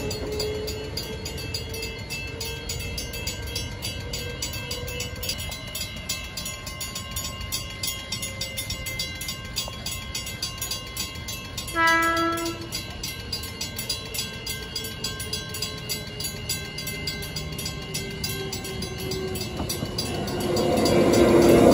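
Transperth electric trains: one's motor whine fades as it pulls away, a short horn blast sounds about halfway through, and the noise swells near the end as another train comes past. Level crossing warning bells ring with an even beat throughout.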